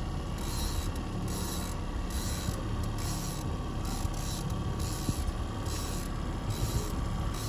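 Boat's outboard motor running steadily at trolling speed, with a low, even hum and water noise.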